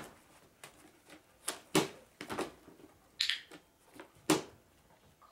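About half a dozen sharp plastic clacks and knocks from a small pedal-operated trash can as a dog works its pedal and lid to drop something in.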